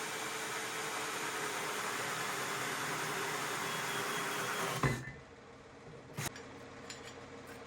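Cordless hammer drill driving an old hole saw through pallet wood, running steadily, then stopping abruptly with a knock about five seconds in. A few light knocks follow.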